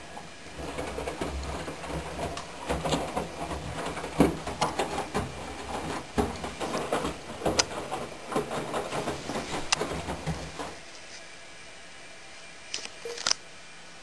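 Candy GO4 1274 GrandO Plus washing machine tumbling a load of cushions during the wash: a steady motor hum under irregular thuds and water sloshing, which stops abruptly as the drum pauses. A couple of short clicks follow near the end.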